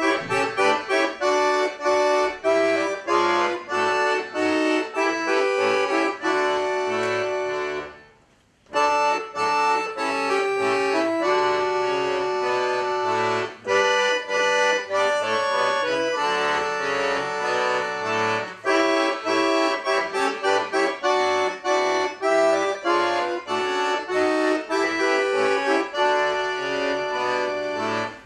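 An ensemble of four accordions playing a piece together in rhythmic chords. About eight seconds in the playing stops for under a second, then starts again.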